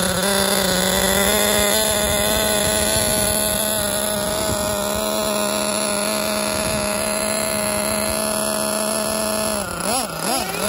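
Small single-cylinder nitro engine of a Serpent SRX8 1/8-scale buggy idling steadily and evenly after break-in. Near the end its pitch dips and comes back up twice.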